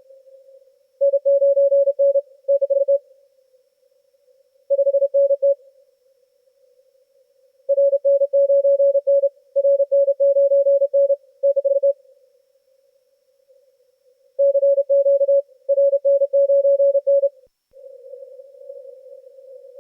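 Morse code (CW) signal received on a Yaesu FTdx10 transceiver through a narrow CW filter: a steady pitched tone keyed on and off in quick groups of dots and dashes, with soft band-noise hiss in the gaps. Near the end the audio drops out for an instant and comes back as a louder hiss of band noise.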